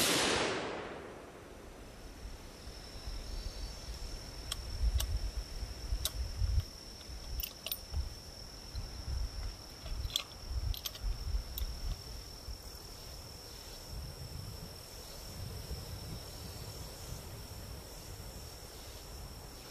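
A bolt-action rifle shot right at the start, its report dying away over about two seconds. Then, from about four to twelve seconds in, a string of short sharp metallic clicks as the bolt is worked to eject the spent case and chamber the next round. Wind gusts rumble on the microphone, and a steady high insect drone comes in after the shot.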